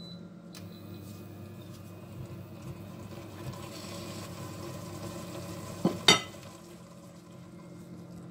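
Chicken, prawns and vegetables cooking in a stainless steel pot, stirred with a silicone spoon over a steady low background. About six seconds in, two sharp knocks as the spoon strikes the pot.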